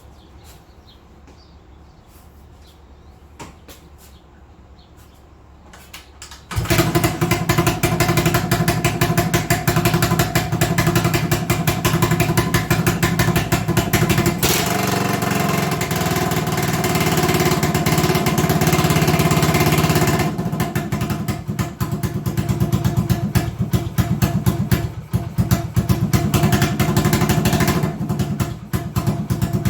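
A few faint clicks, then about six seconds in the single-cylinder four-stroke engine of a 1980 Honda XL250S motorcycle starts running loudly and keeps running. Its sound shifts a couple of times as the carburettor idle screw is adjusted to cure an idle that runs too high.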